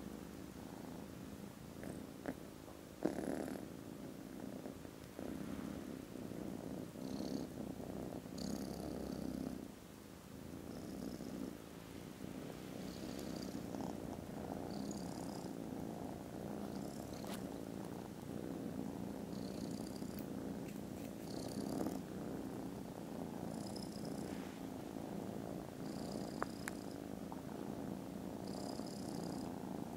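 Kittens purring close up: a steady, very loud purr, with a brief knock about three seconds in.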